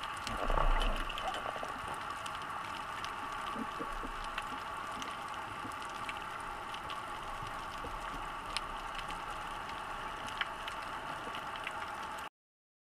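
Underwater reef ambience heard through a camera housing: a steady hiss with scattered faint clicks, and a louder swish of water about a second in. It cuts off suddenly near the end.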